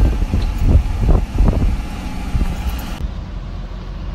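Car driving, heard from inside the cabin: a low rumble with several irregular thuds in the first two seconds. About three seconds in the sound turns abruptly duller and steadier.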